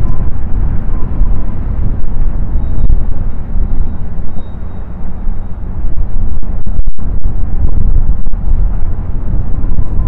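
Strong, gusty wind buffeting the microphone: a loud, rough low rumble that surges and eases, with a brief dropout about seven seconds in.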